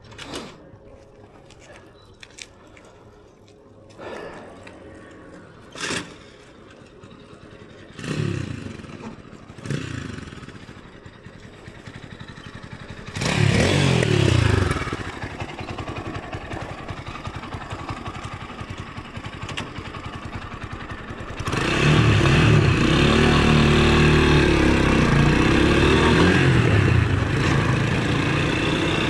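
A motorcycle that has been reluctant to start: a couple of short tries that die out, then a louder brief catch with revving. A little over 20 s in, the engine runs steadily and is revved up and down.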